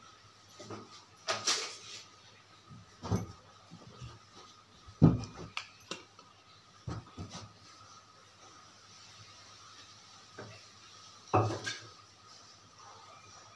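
Small bottles and household items being picked up and set down: scattered knocks and clatters, the loudest about five seconds in, over a faint steady hum.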